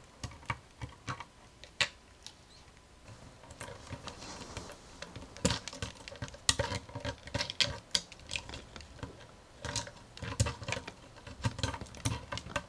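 A cat's claws scratching the bark of a tree-log scratching post: irregular quick scratching strokes, sparse at first and busier from about five seconds in.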